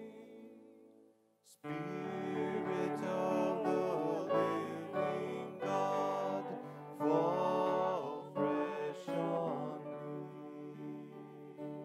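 A slow hymn sung with instrumental accompaniment. It dies away to a short silence about a second and a half in, then starts again and carries on.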